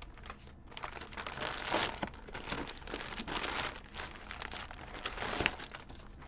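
Kraft-paper mailer crinkling and rustling as hands open it and slide out packs of origami paper, one in plastic wrap, with crackles that swell about two seconds in and again near the end.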